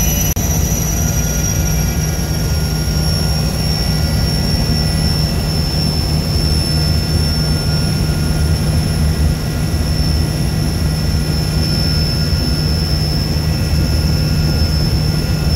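Sikorsky S-64 Skycrane helicopter's turbine engines and rotor heard from inside the cockpit: a loud steady drone with a high turbine whine that sinks slightly in pitch.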